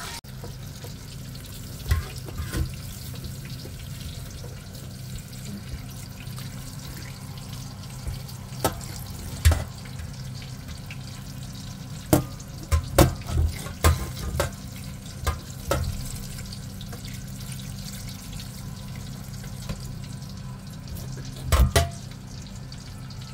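Tap water running onto dried libas leaves in a wire-mesh strainer in a stainless-steel sink, rinsing off dust and sand, over a steady low hum. Several sharp knocks and clanks of the strainer against the sink, in a cluster near the middle and a double one near the end.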